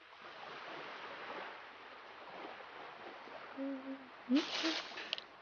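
Steady seaside ambience, a soft wash of noise like distant surf. About three and a half seconds in, a character gives a short hummed vocal sound, then a brief rising vocal sound with a loud rushing swish just after it.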